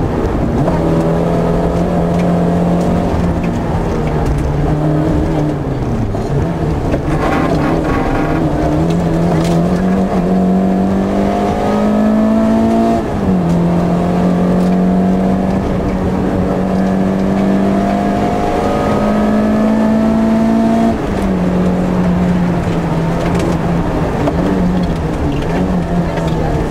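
Rally car's engine heard from inside the cockpit, driven hard at high revs with road noise underneath. The engine note rises and falls with the throttle and drops sharply about halfway through and again about three quarters of the way, at gear changes.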